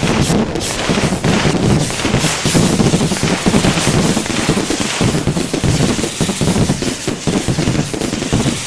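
Fireworks going off in a dense, unbroken barrage of rapid bangs and crackles.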